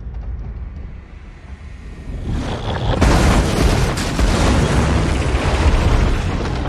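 Film sound effects of a derailed bullet train smashing through buildings: a low rumble that swells about two seconds in into a loud, sustained crash of tearing metal and debris, with deep booms.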